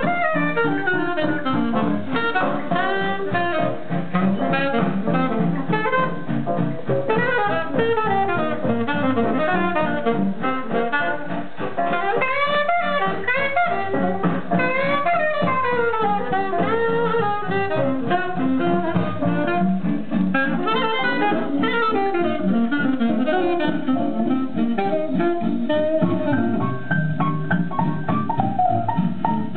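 A record playing through the built-in speaker of a Dansette Conquest record player with a Garrard turntable: instrumental jazz with melodic lead lines over a steady bass, sounding thin with no top end.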